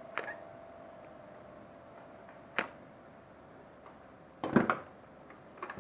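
Sharp clicks and knocks of tools working on a TV power-supply board as a faulty capacitor is desoldered: one just after the start, one about two and a half seconds in, a louder cluster about four and a half seconds in and a pair near the end, over a faint steady tone.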